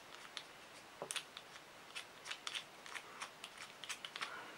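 Faint, scattered clicks and light rattles of the plastic and rubber parts of a Jetvalve CO2 inflator mount being handled and pulled apart, with a small cluster of clicks about a second in and more irregular ticks later.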